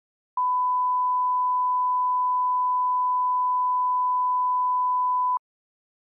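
A 1 kHz line-up test tone, the reference tone that goes with colour bars: one steady, pure beep lasting about five seconds, which starts and cuts off abruptly.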